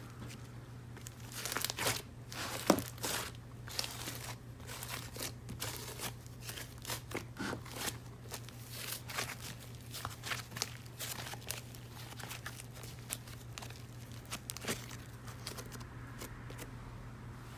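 Dried clay being cracked and crumbled by hand: a run of many small sharp snaps and crackles, with the loudest snap about three seconds in, thinning out near the end.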